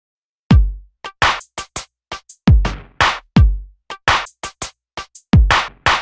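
Electronic drum-machine beat, with no melody yet: deep kick drums whose pitch drops after each hit, sharp claps and quick hi-hat ticks, starting about half a second in.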